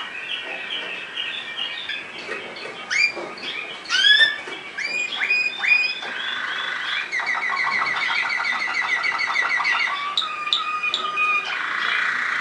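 Waterslager song canary singing a varied song of fast rolls and trills. A run of separate sweeping notes comes a few seconds in, then a long rapid trill, and a lower, steadier roll near the end.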